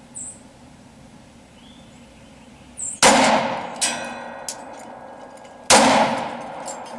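Two .40 caliber pistol shots from a Glock 27, about three seconds in and near the end. About a second after the first shot a steel target is struck and rings on with a clear clang.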